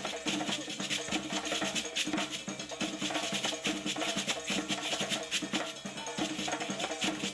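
Traditional West African drumming and percussion playing a fast, dense rhythm, with wooden, knocking strokes among the drums.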